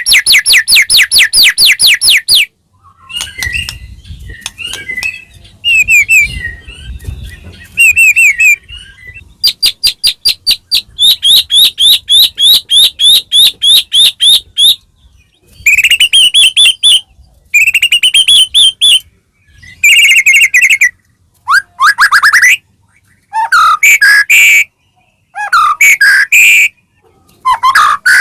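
White-rumped shama (murai batu) singing loudly: long runs of fast repeated rising whistled notes, broken by short pauses and by softer, varied chattering phrases.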